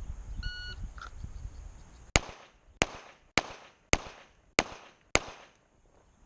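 A shot timer's short start beep, then about a second and a half later six pistol shots from a Stoeger handgun, evenly paced about 0.6 s apart.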